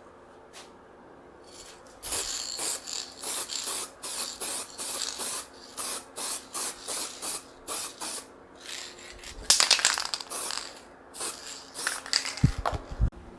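Aerosol spray-paint can spraying in short hissing bursts, about two a second, then a longer, louder spray. A few low thumps near the end.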